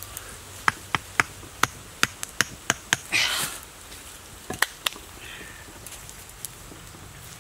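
Knife cutting at a thin green bamboo stick: about ten sharp, irregular cracks over the first three seconds, a short rustle, then a few more cracks around four and a half seconds in.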